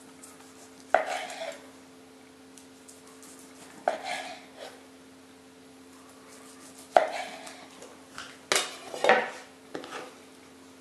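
A kitchen knife slicing a firm, dense semi-smoked sausage on a wooden cutting board: a sharp knock of the blade on the board at the end of each slice, several times at uneven intervals, each followed by a brief scrape. A faint steady hum lies underneath.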